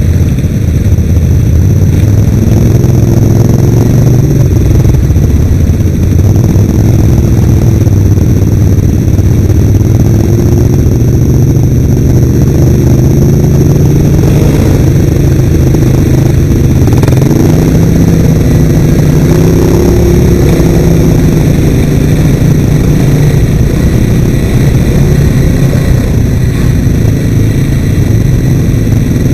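Off-road vehicle engines running close to the microphone as they ride along a dirt trail, the engine note rising and falling with the throttle; the nearest is an ATV.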